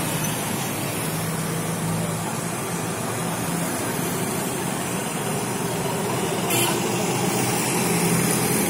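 Steady engine hum and road noise of a vehicle driving through city traffic, with one brief click about six and a half seconds in.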